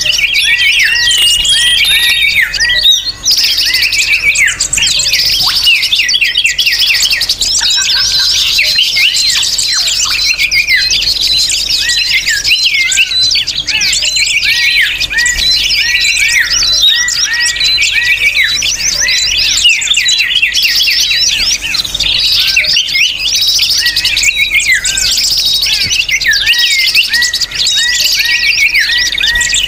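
Dense, noisy chorus of many small birds chirping at once, a continuous stream of quick, high, overlapping chirps and trills of the kind played as a bird-lure call.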